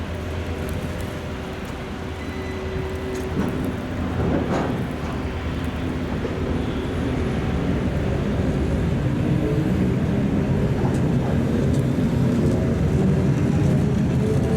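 ER2K electric train running with a steady low rumble. About halfway through, the whine of its traction motors sets in and rises slowly in pitch, getting louder as the train speeds up; a short clatter comes about four seconds in.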